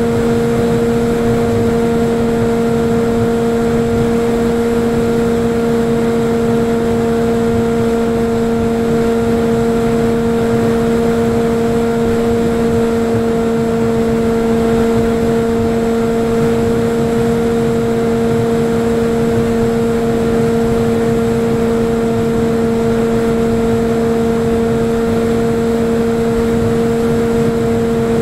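Electric motor and propeller of a Falcon Evo FPV flying wing in flight, heard through its onboard camera: a steady motor whine holding one unchanging pitch at constant throttle, over a rough rush of air.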